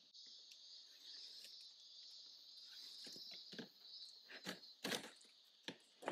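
Faint steady high-pitched insect chorus, with a few short crackles and clicks about three to five seconds in as the red backing is peeled off double-sided tape on a plastic car grille and the grille is handled.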